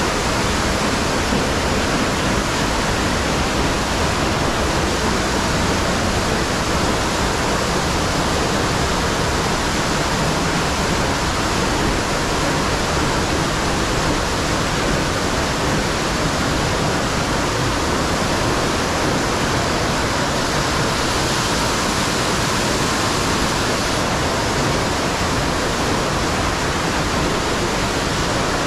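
Fast-flowing water rushing, a steady loud noise that stays constant throughout.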